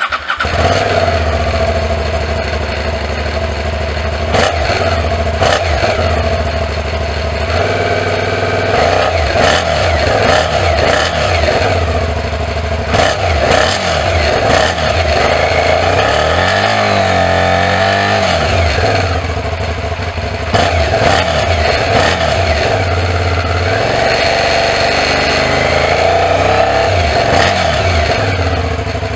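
Aprilia Shiver 750's 750 cc V-twin engine running at idle and being revved several times, the pitch rising and falling with each blip. It cuts in suddenly at the start.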